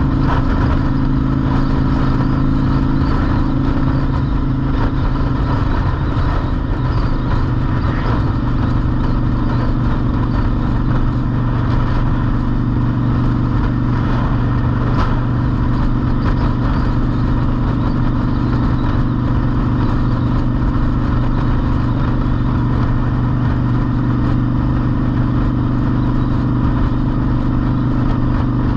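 Honda Shadow's V-twin engine running steadily at cruising speed, heard from the rider's seat along with road noise; its note shifts slightly about five seconds in.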